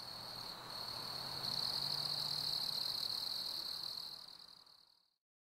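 Insects trilling steadily in a high, even pitch over a faint outdoor hiss, fading out about four and a half seconds in.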